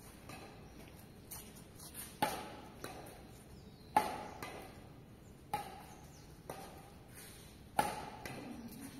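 Badminton rackets striking a shuttlecock back and forth in a rally: about five sharp, ringing hits, roughly one every one and a half to two seconds, each with a short echo.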